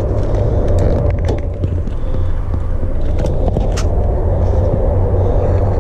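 Cummins turbo-diesel engine of a Dodge pickup idling steadily, with a few sharp clicks and rattles from a plug and cords being handled.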